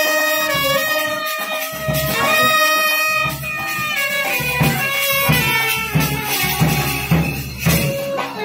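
Music: a melody of held notes on a wind instrument over a steady beat.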